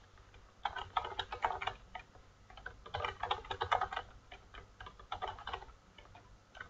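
Computer keyboard being typed on in several quick runs of keystrokes with short pauses between them.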